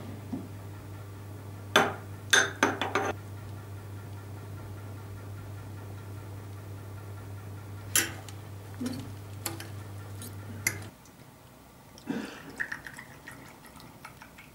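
A metal spoon and forks clinking against a ceramic bowl and a glass serving dish as a thick dressing is spooned onto a chopped salad and mixed, a few sharp clinks at a time, over a steady low hum that stops about eleven seconds in. Near the end, a clear liquid is poured into a small glass shot glass.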